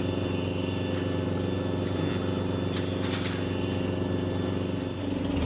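Gepard anti-aircraft tank's diesel engine idling steadily, with an even low hum.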